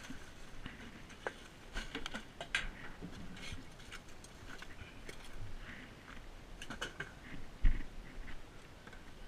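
Scattered light clicks and knocks of trash and boards being handled beside a dumpster, with one heavy thump about three-quarters of the way through.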